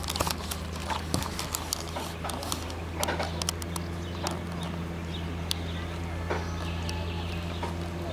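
Small 4 hp Tomos two-stroke outboard motor running steadily under way, a low even drone, with irregular sharp ticks and slaps over it.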